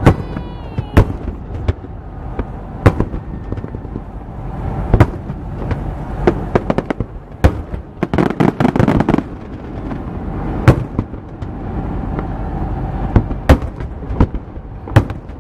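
Fireworks display: aerial shells bursting with sharp bangs every second or two, and a dense run of crackling about eight seconds in.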